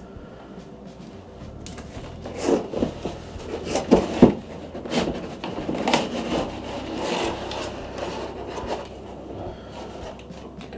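A long cardboard shipping box being opened by hand: the lid scrapes and rubs against the base as it is worked loose and lifted off, with a few sharp knocks, the loudest about four seconds in.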